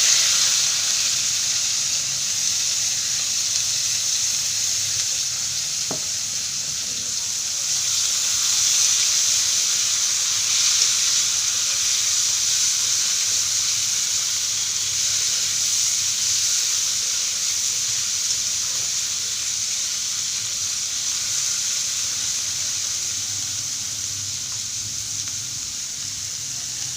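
Boiled bitter gourd frying in hot oil in a kadai with cumin, mustard seeds and green chillies: a steady sizzle that eases a little toward the end, with one light tap about six seconds in.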